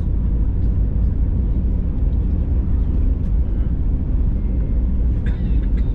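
Airbus A320neo cabin noise heard from a window seat while the airliner rolls on the runway after landing: a steady low rumble.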